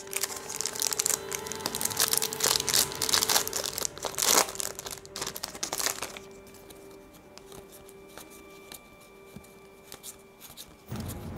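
Trading card pack wrapper being torn open and crinkled by hand, a dense crackling for about the first six seconds, then only faint handling of the cards.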